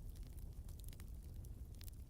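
Fire crackling faintly: irregular sharp pops and snaps, several a second, over a low steady rumble.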